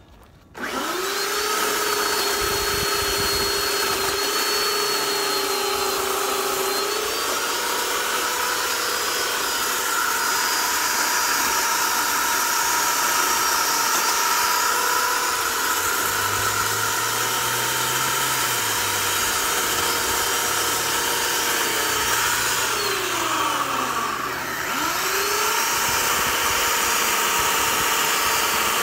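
Corded electric chainsaw switched on about half a second in, spinning up to a steady high whine. About three-quarters of the way through, the motor winds down briefly, then spins back up and runs on.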